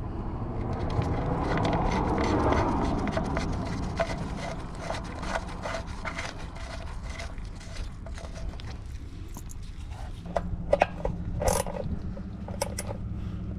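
Irregular clicks, taps and scrapes of hand work with tools and engine parts, over a steady low hum.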